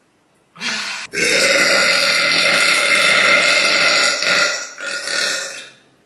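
A girl belching: a short belch about half a second in, then a long drawn-out belch of about three seconds that breaks into two shorter ones and fades out near the end.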